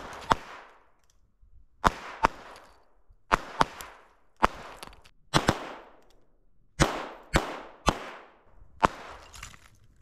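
.22 handguns firing: about eleven sharp shots at an irregular pace, some in quick pairs, each followed by a short echo.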